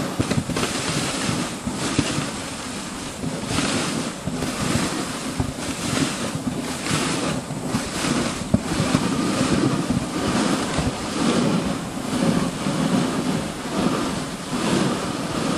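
Dog sled runners sliding and rattling over glacier snow while the team pulls, a continuous rough swishing with uneven surges, mixed with wind buffeting the microphone.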